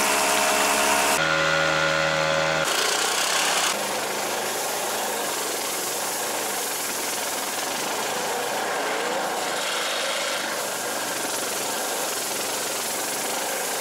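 Small outboard motor running under way, its tone shifting abruptly about a second in. From about three seconds in, a steady, dense rustling and scraping of reeds brushing along an inflatable PVC boat as it pushes through a reed bed.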